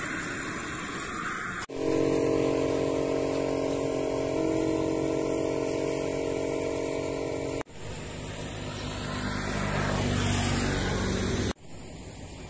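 Motorcycle engine running steadily with a low hum, then revving up in a rising sweep over wind noise. The sound breaks off abruptly twice where short clips are joined.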